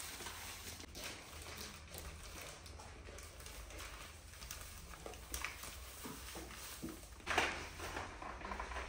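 White granules pouring from a plastic packet into a plastic jar, with soft rustling and crinkling of the packet; a louder crinkle about seven seconds in.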